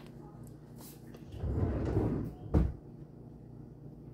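A cupboard being shut: a low rumble for about a second, then a single sharp knock as it closes.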